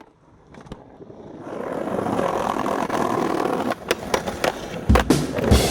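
Skateboard wheels rolling over pavement, fading in and growing louder over the first two seconds, with a few sharp clicks. Near the end a music track comes in with heavy drum thumps.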